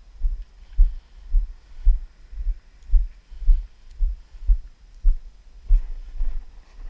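Walking footsteps on dirt and gravel, a low thud about twice a second, picked up through a body-worn camera.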